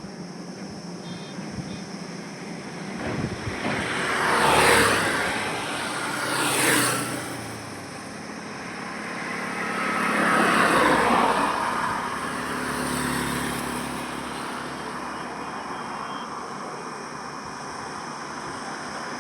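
Road traffic passing by: three vehicles go past in turn, about five, seven and eleven seconds in, each swelling up and fading away with a falling pitch, over a steady background of traffic noise.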